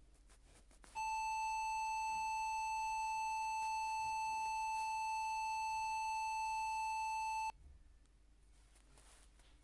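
A steady electronic beep tone at one fixed pitch, held for about six and a half seconds: it switches on about a second in and cuts off suddenly.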